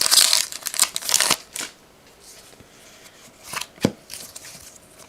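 Trading-card pack wrapper crinkling as it is torn open and handled for about the first second and a half, then quieter handling of the cards with a couple of light taps.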